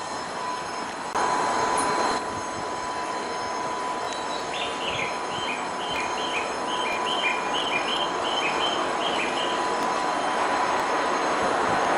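Railway station ambience: steady train noise with a constant high whine. A louder rush of noise lasts about a second near the start, and a run of quick, high, two-note chirps comes in the middle.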